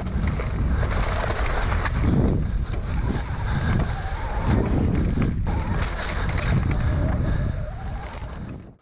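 Electric mountain bike (Santa Cruz Bullit) ridden hard down a rough trail: tyre roar and rattling from the bike under heavy wind noise on the microphone. It cuts off suddenly near the end.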